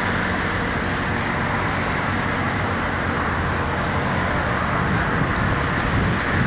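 Steady road traffic noise: a continuous rush of passing cars, with a low engine hum in the first few seconds.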